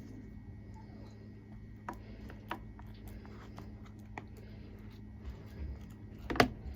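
A few light clicks and knocks of kitchen utensils against a bowl and mould, with one sharper knock near the end, over a steady low hum.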